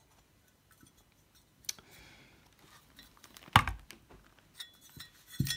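A few light clicks and knocks as a Shimano Dura-Ace SM-RT900 centre-lock disc rotor is taken hold of, lifted off a kitchen scale and handled. The sharpest knock comes about three and a half seconds in.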